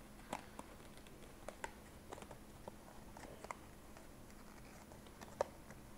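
Faint, irregular clicks and taps of a small cardboard box being handled and opened, with a sharper click near the end.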